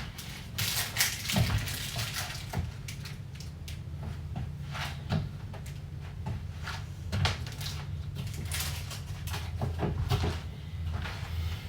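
Irregular clicks, taps and knocks of kitchen items being handled while making coffee, over a steady low hum.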